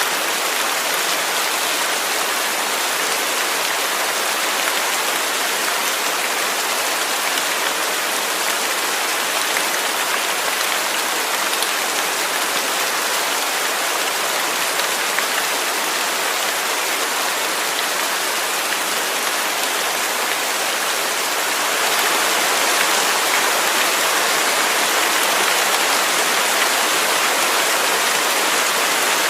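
Waterfall: a steady rush of falling water, a little louder from about three-quarters of the way in.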